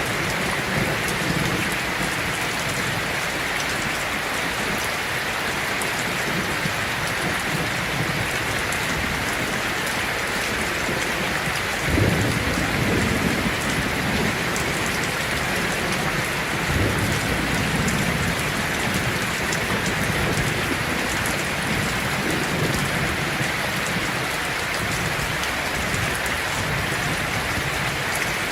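Heavy rain falling steadily on a tin roof, with a thunderclap about twelve seconds in that rolls off into rumbling, and a softer roll of thunder a few seconds later.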